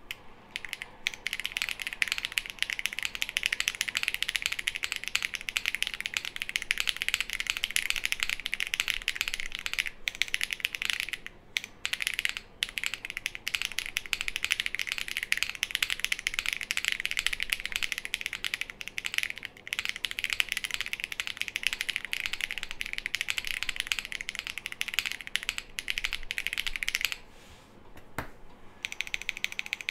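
Fast, continuous typing on a custom Glacier 80 mechanical keyboard with lubed Holy Panda tactile switches on a polycarbonate plate, GMK keycaps and Durock stabilisers: a dense stream of keystroke clacks with a few short pauses. The typing stops about 27 seconds in and starts again shortly before the end.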